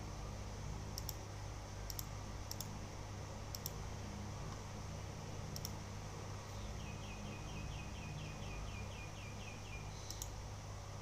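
A handful of scattered sharp clicks over a steady low hum. About halfway through, a quick run of about a dozen short high chirps, roughly five a second, lasting some three seconds.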